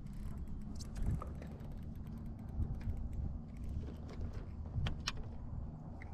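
Scattered light clicks, taps and creaks of a crappie, fishing tackle and a plastic kayak being handled as the fish is lifted aboard and unhooked, with sharper clicks about a second in and about five seconds in, over a steady low rumble.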